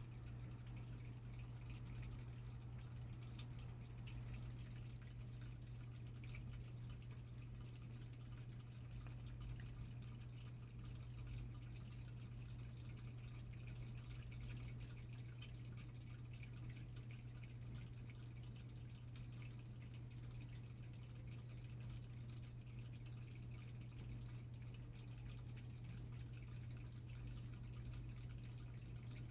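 Fish gulping at the water surface, making many faint little popping, drip-like clicks with their mouths, over a steady low hum.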